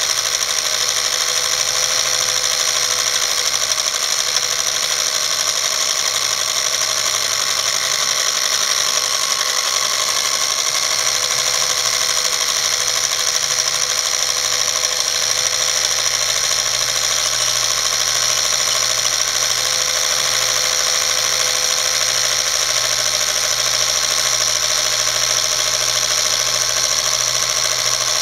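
Film projector running: a steady, unchanging mechanical whirr of the motor and film transport.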